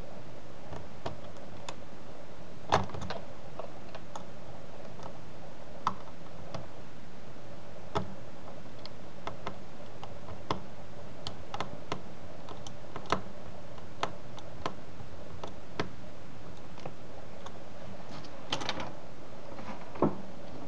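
Precision screwdriver and tiny screws clicking and ticking against a laptop's screen frame as the screws are driven back in: irregular light clicks, with sharper ones about three seconds in and near the end, over a steady low hiss.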